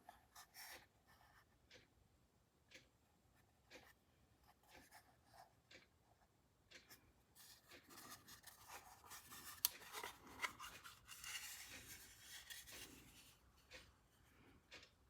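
Faint handling noises: light rubbing and scattered small clicks, busier in the middle, with one sharp click a little before ten seconds in.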